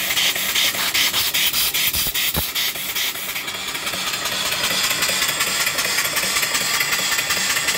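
Steam hissing from the open blowdown valves under the cylinder of a running 3-inch-bore, 4-inch-stroke mill steam engine. It comes in rapid, regular pulses for the first three seconds or so, then settles into a steadier hiss.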